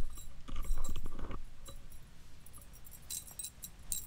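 Small metal clinking and jingling from a cat's wand toy, whose string carries a metal fitting, as the toy is jiggled and the cat grabs at it, mixed with rustling handling noise. The rustling is loudest in the first second or so; a few brighter clinks come near the end.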